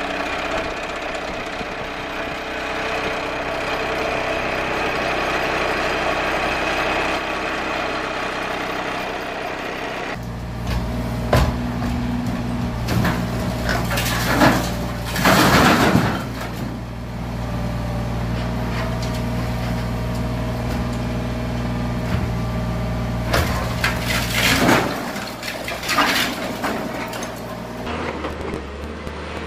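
An excavator-mounted hydraulic plate compactor vibrates against packed earth with a dense, steady mechanical noise. About ten seconds in, this gives way to a running excavator engine and the loud crunching and cracking of a hydraulic demolition shear breaking up a brick wall, in several bursts, the longest in the middle.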